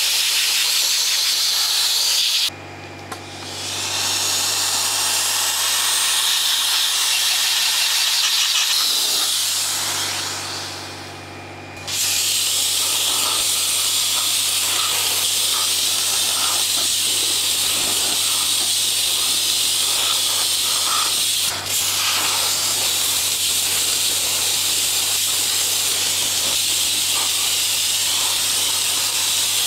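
Handheld soda-blasting gun spraying compressed air and baking-soda media onto a carburettor body: a loud, steady hiss. It stops about two and a half seconds in, then fades out and starts again suddenly around twelve seconds, with a brief break a little past twenty seconds.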